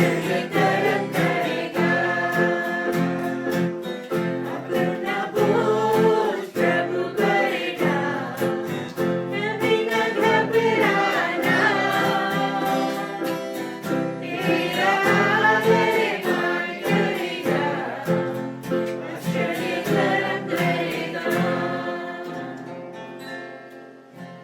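Worship song: singing over guitar accompaniment, fading out near the end.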